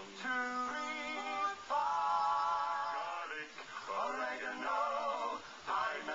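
Barbershop quartet of men singing in close harmony, holding one long chord about two seconds in, heard through a TV speaker.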